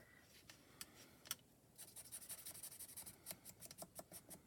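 Parkoo permanent marker scribbling on small cardstock pieces, faint: a few light taps, then from about two seconds in a fast run of short scratchy strokes, several a second.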